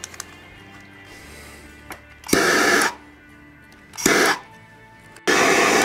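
Hand-held propane torch flame rushing in three short bursts, about two seconds in, at four seconds and again near the end, as it is played over vinyl wrap to soften it so it stretches and conforms around a rifle's pistol grip. Quiet background music underneath.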